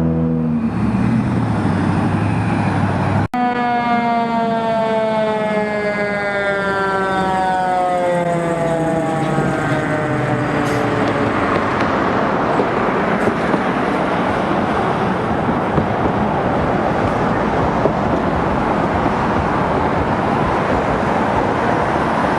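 A vehicle engine running, then, after a sudden cut about three seconds in, an emergency vehicle's siren winding down in one long falling tone over about eight seconds, giving way to steady vehicle and road noise.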